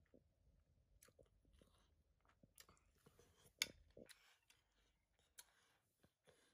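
Faint eating sounds: a metal spoon clicking and scraping against a plate, mixed with chewing, with one sharper click about three and a half seconds in.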